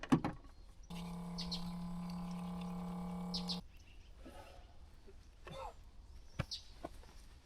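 A steady electric hum, like a small motor or appliance, starts about a second in, runs for nearly three seconds and cuts off sharply. Scattered clicks and knocks of things being handled come before and after it.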